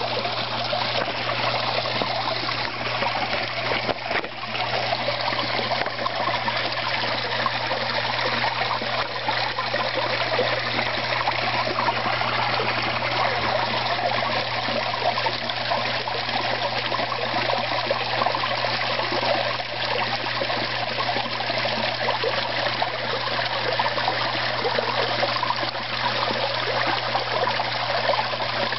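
Water from a small stone waterfall splashing and trickling steadily into a koi pond.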